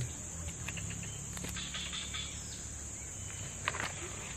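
Steady high-pitched insect buzz from the swampy undergrowth, with a few sharp clicks and a short chirp near the end.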